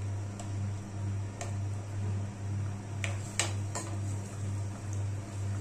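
Metal ladle knocking lightly against an earthenware pot of simmering fish curry as it is stirred, a few soft clicks with the sharpest about three and a half seconds in. Under it runs a steady low hum that pulses about twice a second.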